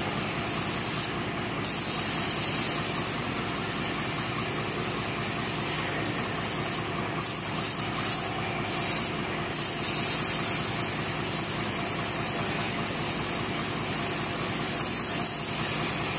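Compressed-air paint spray gun hissing steadily as it sprays paint, the hiss cutting out briefly about a second in and several times around the middle as the trigger is let off.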